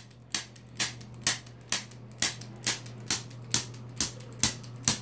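Handheld chiropractic adjusting instrument clicking each time its trigger is pulled, firing evenly spaced thrusts about two a second against a dog's spine. A steady low hum runs underneath.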